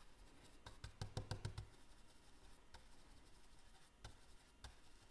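Faint soft taps of a stencil brush being dabbed onto a small wooden tag through a stencil: a quick run of dabs about a second in, then a few scattered ones.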